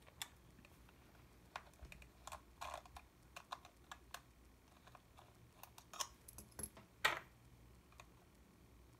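Faint, irregular small clicks and taps of hands handling and working the plastic body of a Yashica T4 compact camera, with a couple of louder clicks about six and seven seconds in.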